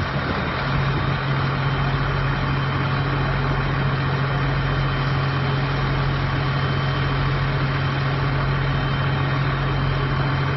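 Fire truck engine running steadily at the fire scene, a constant low hum over a dense mechanical roar, with a faint steady high whine.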